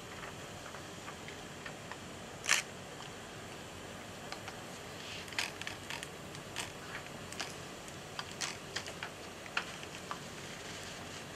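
Scattered short, sharp clicks over a quiet room tone, the loudest about two and a half seconds in and a run of smaller ones through the second half.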